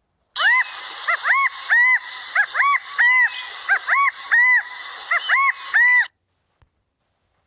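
A bird calling over and over in a quick series of short, arched notes, about three a second, over a steady hiss; the recording cuts off suddenly about six seconds in.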